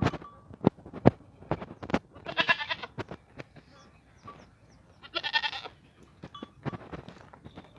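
Goat bleating twice, each call under a second long, about two seconds apart, among scattered sharp clicks and knocks.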